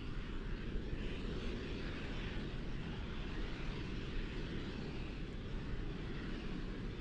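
Distant rumble of a Falcon 9 rocket's nine Merlin first-stage engines heard from the ground, a steady low noise without breaks.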